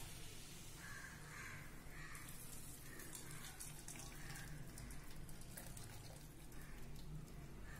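Warm jaggery syrup pouring from a pan through a fine mesh strainer into a steel vessel: a faint, steady trickle of liquid.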